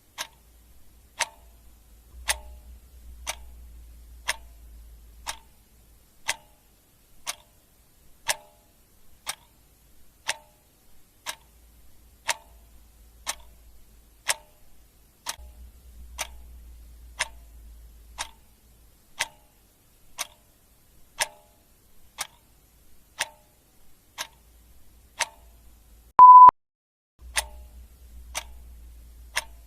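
Clock ticking steadily, one tick a second. About 26 seconds in, a single short high beep sounds, louder than the ticks.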